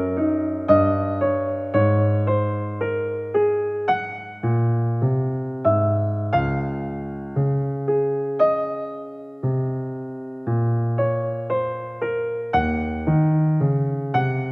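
Background piano music: a slow, gentle melody of struck keyboard notes, about two a second, each ringing and fading before the next.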